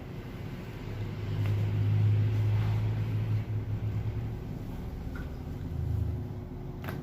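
A low, steady hum, like a motor or a passing vehicle, swells about a second in and fades after a few seconds. A weaker swell comes around the sixth second, then a sharp click near the end.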